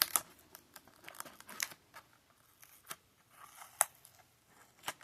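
Handling and opening a Hot Wheels blister pack: scattered sharp clicks and short snips and rasps of plastic and card, the sharpest click just before the end.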